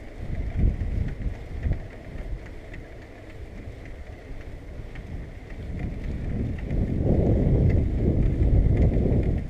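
Wind buffeting the microphone of a camera on a moving bicycle, a gusty rumble that comes in short surges at first and grows louder and steadier about two-thirds of the way through.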